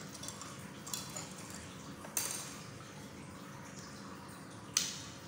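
Sections of a five-piece travel fishing rod clicking and knocking against each other as they are handled and fitted together: three sharp clicks, about one, two and nearly five seconds in, the last the loudest.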